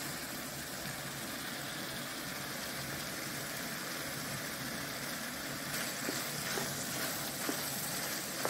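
Ground meat and chopped onion sizzling steadily in a frying pan, with a wooden spoon starting to stir and scrape through it in the second half.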